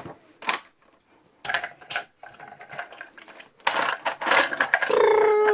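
Hard recycled-plastic toy parts clicking and knocking as a toy fire truck is pushed into a toy fire station and its doors are handled, with a denser clatter nearly four seconds in. Near the end a person makes a short held "ohh".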